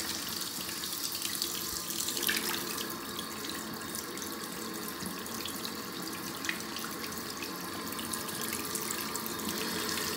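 Water running steadily from a glass waterfall faucet, a wide sheet of water pouring into a bathroom sink.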